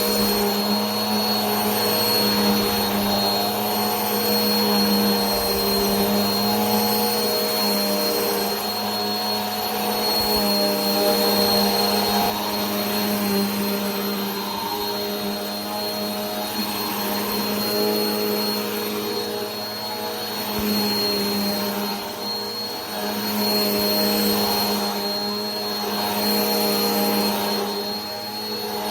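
Vacuum cleaner running continuously: a steady motor hum with a thin high whine over a rushing air noise, its pitch wavering slightly and its loudness swelling and dipping a little.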